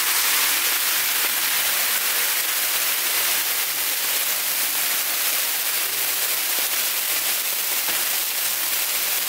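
Water poured onto a hot steel Blackstone flat-top griddle sizzling and hissing steadily as it boils off into steam among the food.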